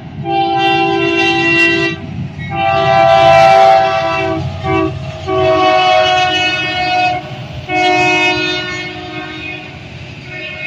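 A diesel freight locomotive's multi-chime air horn sounding a series of long blasts with a short one between, the long-long-short-long pattern blown for a grade crossing, then another long blast. Underneath runs the low rumble of the passing diesel locomotives, which fades near the end as the freight cars roll by.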